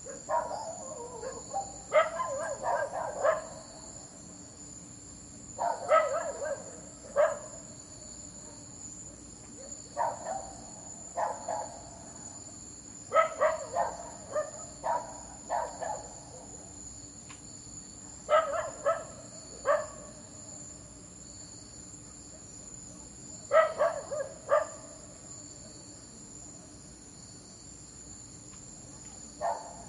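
A dog barking at night in short bouts of a few barks each, one bout every three to five seconds, over the steady high chirring of crickets.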